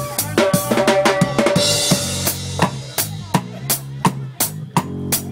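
A live band playing, led by a drum kit: rapid kick, snare and rim hits over a bass line and held notes, with a cymbal crash about two seconds in.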